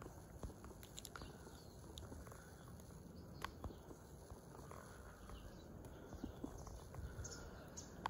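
Quiet outdoor background: a steady low rumble with a few faint scattered clicks, one a little sharper about three and a half seconds in.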